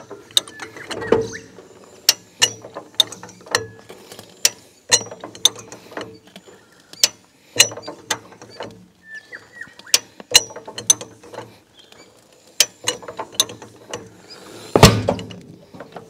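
High-lift jack being pumped: its climbing pins clack on the steel bar in a run of sharp ratcheting clicks, about two a second, as the jack foot presses down on a deflated tyre's sidewall. Near the end, a louder, deeper thump as the tyre bead breaks free of the rim.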